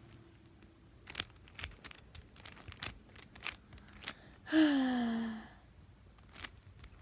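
Rubik's cube being turned by hand: an irregular scatter of quick plastic clicks. A little past the middle comes a loud, falling, sigh-like vocal sound lasting about a second.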